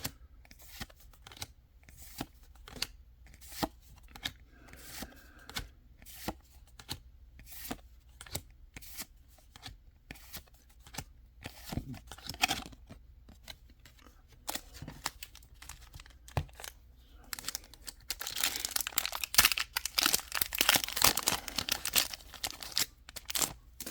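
Trading cards being handled with a string of light clicks and flicks, about two a second. About three quarters of the way in comes a louder few seconds of foil Pokémon booster-pack wrapper being torn open and crinkled.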